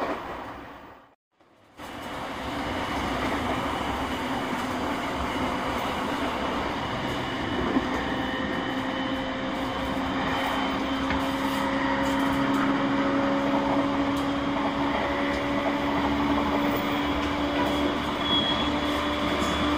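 Running sound of an E231-1000 series electric train with renewed traction equipment: a steady rumble of the train under way, with the traction motors' whine climbing slowly in pitch as it gathers speed. The sound cuts out for about a second near the start.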